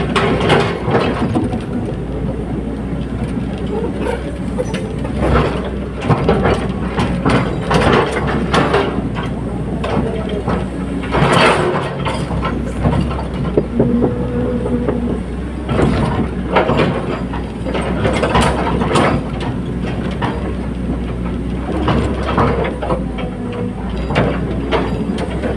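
Caterpillar 320D hydraulic excavator's diesel engine running steadily, with irregular metallic clanks and knocks as the machine works.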